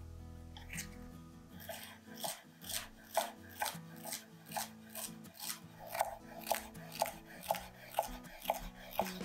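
Kitchen knife chopping vegetables on a cutting board: sharp, even strokes about two a second, starting a couple of seconds in, over soft background music.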